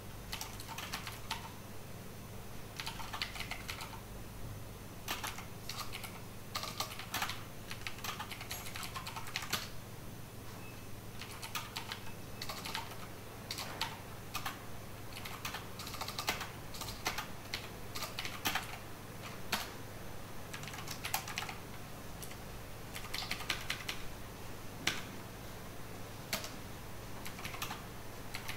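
Typing on a computer keyboard: irregular runs of keystrokes broken by short pauses, over a faint steady low hum.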